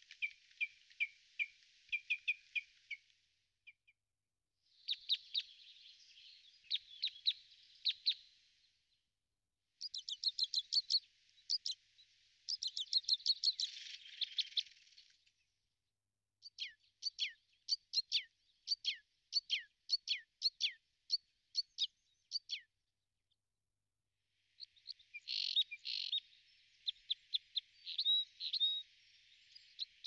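Small songbird chirping: phrases of short, high notes a few seconds long, separated by brief pauses, many of the notes sliding quickly downward in pitch.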